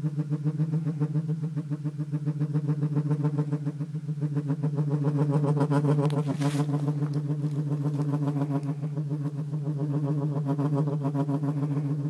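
Sci-fi UFO hovering sound effect played through speakers: a steady, low synthesized hum with a fast pulsing flutter, and a brief hiss about six and a half seconds in.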